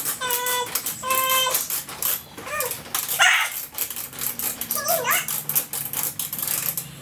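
A dog whining: two held high cries about half a second each near the start, then shorter rising-and-falling whines. Light clicking and tapping of a hand tool runs underneath.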